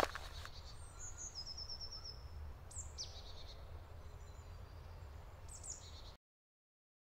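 Forest birds calling over a low steady rumble: a quick run of high repeated notes about a second in, then short high calls sweeping downward around three seconds and again near the end. A single click opens it, and the sound cuts off abruptly about six seconds in.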